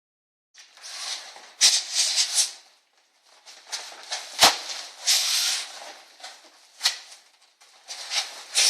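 Foil-backed foam insulation board being bent and pushed into a metal garage door panel: scraping, crinkling rustle in bursts, with three sharp knocks against the door.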